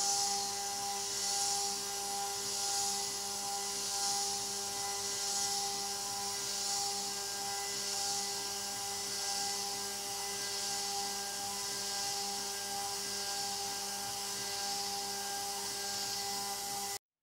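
CNC router spindle running at 12,000 RPM with a steady whine as a 4 mm end mill spirals down through a cast aluminium plate. Over it is the hiss of the mist coolant and a 2-bar air blast, swelling and fading about once every second and a half. The sound cuts off suddenly near the end.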